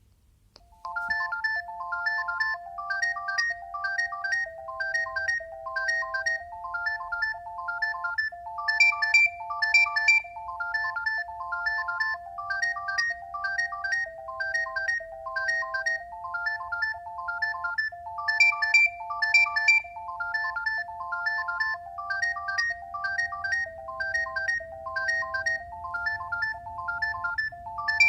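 Alcatel One Touch 320 mobile phone playing a ringtone: an electronic melody of quick high notes over held lower notes, starting about a second in and looping about every nine to ten seconds.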